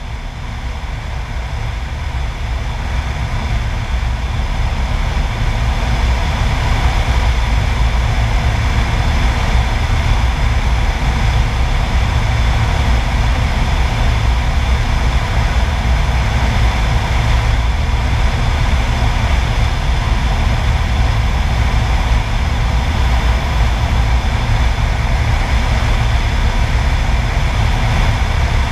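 Single-engine light airplane running steadily on final approach, engine and propeller heard from a camera mounted outside on the wing, with heavy wind rumble on the microphone. The sound fades in over the first few seconds and then holds steady.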